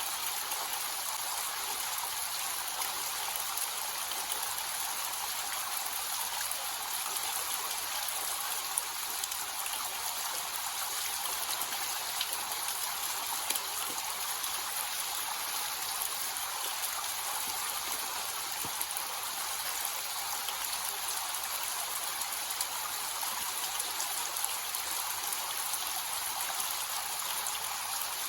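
Small waterfall with a low flow of water splashing and trickling steadily, a bright hiss with little low rumble.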